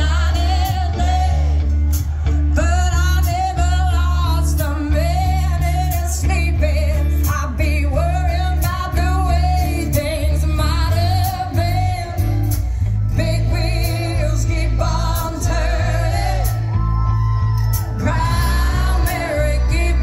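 Live rock band with a woman singing lead: electric guitars, bass guitar and drums, played loud through a PA with a heavy bass line under the vocal.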